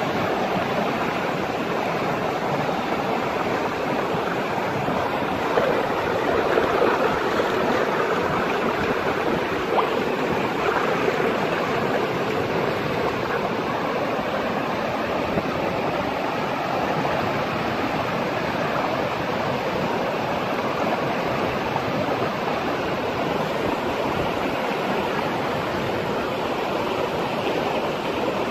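Fast-flowing river rushing over rocks: a steady wash of water noise, with a few brief louder splashes between about six and eleven seconds in.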